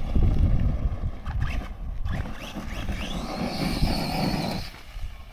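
Electric motor whining: it rises in pitch as the vehicle speeds up, holds a steady high whine, then cuts out suddenly near the end, over a rumble of tyres on dirt.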